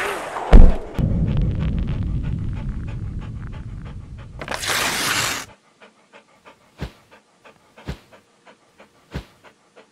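Animated-intro sound effects: a whoosh ending in a sharp thud, then a dog panting for about three and a half seconds, a swoosh, and a run of soft ticks about three a second with a louder knock every second or so.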